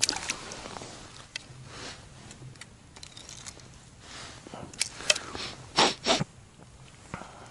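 Light clicks and knocks of ice-fishing gear being handled at a hole in the ice, including a small hammer. Then come a few short, sharp noisy bursts, the loudest pair about six seconds in.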